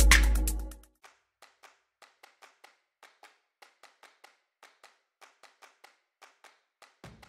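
Electronic intro music with heavy bass fading out within the first second, followed by faint, sharp ticks, irregular and roughly two a second. Music starts again just before the end.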